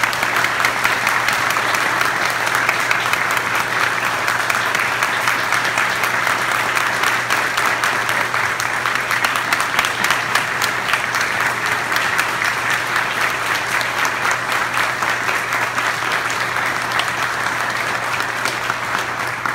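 A church congregation applauding steadily, with many hands clapping at once, thinning out near the end.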